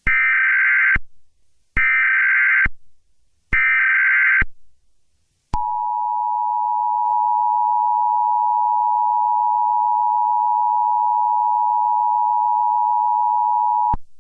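Emergency Alert System opening: three SAME header bursts of warbling data tones, each about a second long, followed by the steady two-tone attention signal held for about eight and a half seconds and cutting off suddenly. It announces a tornado warning that a synthesized voice then reads out.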